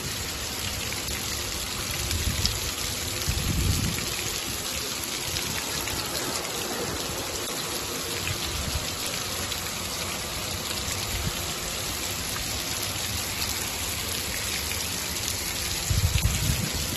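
Water fountain spray from a bronze ballerina statue, a ring of water jetting from the waist and pattering steadily onto the wet concrete ground. Brief low rumbles come about two to four seconds in and again near the end.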